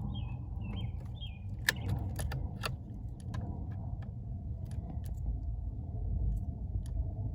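A few sharp clicks and rattles about two seconds in, over a steady low rumble, with a small bird chirping repeatedly in the first second or so.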